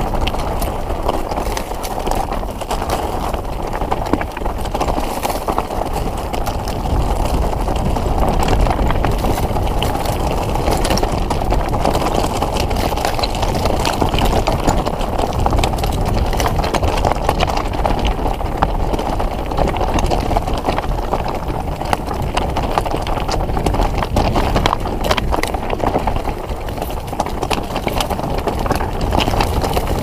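Mountain bike rolling over a rough, rocky trail: a continuous rumble of tyres on stone with frequent clicks and rattles from rocks and the bike.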